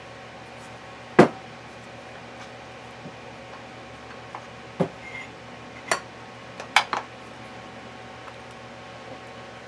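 Metal gearbox parts clinking and knocking as they are handled and set down during reassembly: one sharp knock about a second in, then several lighter clinks between about five and seven seconds in, over a faint steady hum.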